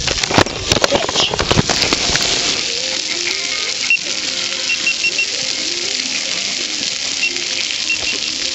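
Steady hissing rush of wind and rolling noise on a camera carried while cycling, with a burst of knocks and rattles in the first two seconds. Faint music plays underneath, and a few short high beeps come around the middle and near the end.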